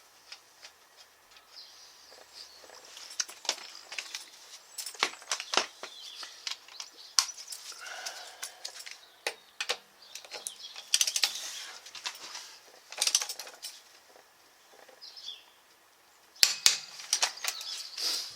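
Metal hand tools and sockets clinking and knocking as they are handled and set down, with scattered sharp clicks and short rattles.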